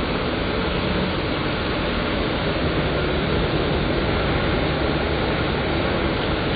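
Forklift truck engine running steadily.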